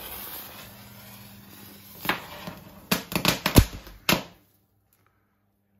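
A Blitz-Knatterball, a small crackling-ball firework, its lit fuse hissing and spraying sparks for about two seconds, then going off in a rapid string of sharp crackling bangs, loudest about three and a half seconds in. It cuts off suddenly after about four seconds.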